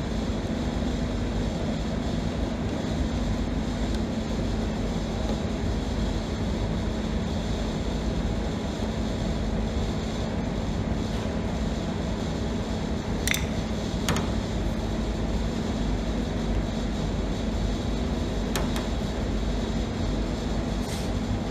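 Steady mechanical hum, like a fan or extractor running, with a few light clicks in the second half as chrome trim is pressed and tapped against the steel bodywork.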